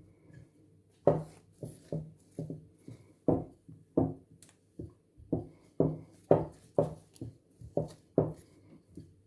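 Wooden rolling pin rolled back and forth over a strip of dough on a silicone baking mat, in a series of short strokes about two a second, starting about a second in.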